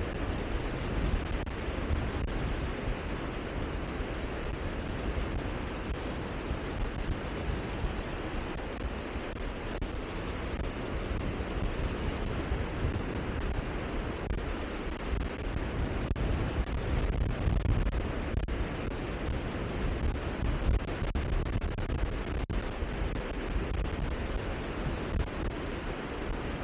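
Steady rushing of wind and sea, with wind rumbling on the microphone.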